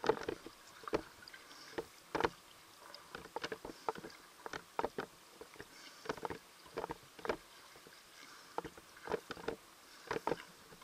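Water sloshing and bubbling against an underwater camera just below the surface: irregular popping and clicking, coming in uneven clusters of one to several a second.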